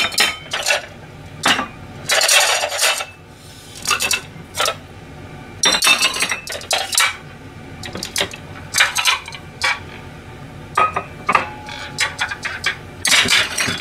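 Plates clattering and clinking as they are stacked and slid onto cupboard shelves: an irregular run of knocks and clinks, a few of them ringing briefly.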